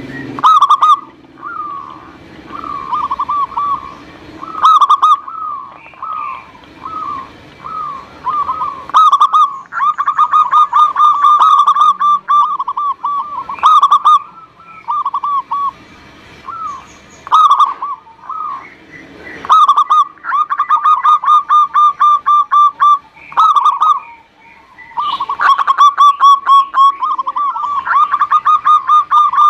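Zebra dove (perkutut) singing: runs of short, quick coos near one pitch, several a second, come in bursts of a few seconds. Brief sharp high chirps are mixed in between.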